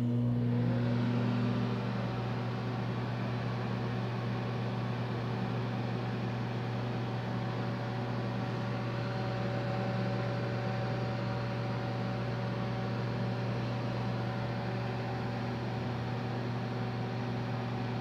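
Microwave oven running while it heats a hamburger: a steady low hum with a whirring fan over it.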